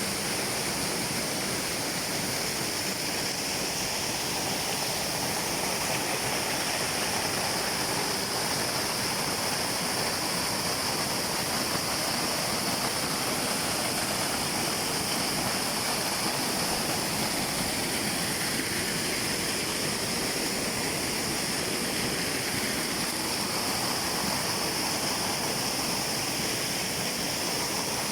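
Rushing water, a steady, even hiss with no breaks.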